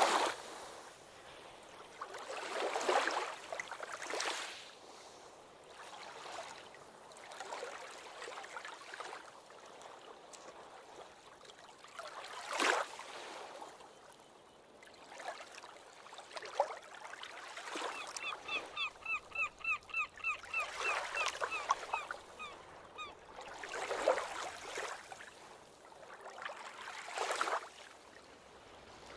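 Ocean waves breaking and washing up the shore every few seconds. For about five seconds past the middle, a bird calls in a quick run of short, evenly spaced calls, about four a second.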